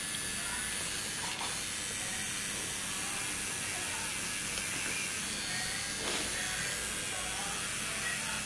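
Pen-style tattoo machine running steadily as the needle works on skin: an even mechanical whir with a hiss.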